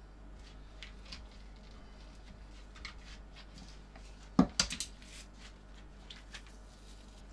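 Small scrapes and clicks of a hand tool working a sandal's sole loose on a cobbler's iron last. About four and a half seconds in comes a sharp knock, followed quickly by a few lighter clatters.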